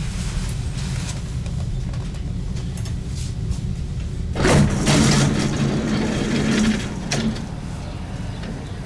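Subway car's sliding doors opening at a station stop: about four and a half seconds in, a sudden hiss with a low motor hum starts and lasts about three seconds, over the steady low hum of the standing train.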